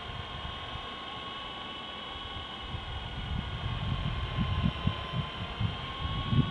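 FX052 electric RC helicopter flying overhead: a thin, steady whine from its motor and rotor that wavers slightly in pitch. Gusts of wind rumble on the microphone, growing stronger in the second half.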